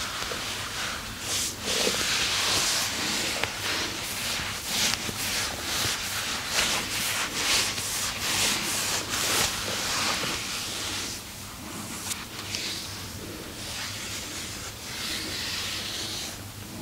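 Hands rubbing over skin in massage strokes, about one or two a second, growing softer after about ten seconds.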